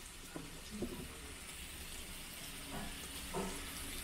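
Pork belly sizzling steadily on a tabletop barbecue grill plate, with a few faint short sounds at moments.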